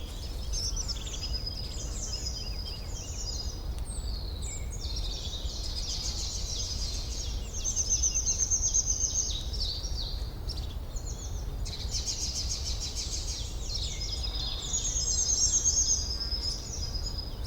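Several songbirds singing together, with many quick chirps and trills overlapping, over a steady low background rumble.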